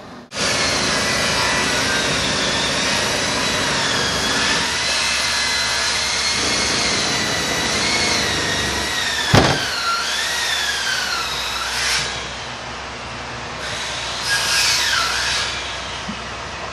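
A power saw running and cutting, its whine wavering and dipping in pitch as it works, with a sharp knock about nine seconds in.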